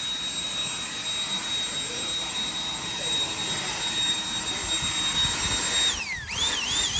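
High-pitched whine of a high-speed power tool motor running at a steady speed. About six seconds in, its pitch drops sharply and comes back, then dips again several times as the tool is loaded in the cut.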